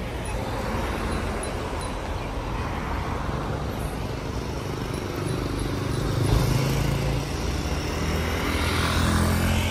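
Street traffic: cars and a motorcycle running past, with a steady low engine hum and road noise that grows louder in the second half as vehicles pass close.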